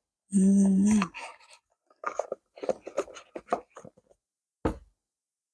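A tarot deck's cardboard box and cards being handled. A short, loud, steady pitched sound comes about half a second in, then light rustling and tapping, and a single knock near the end.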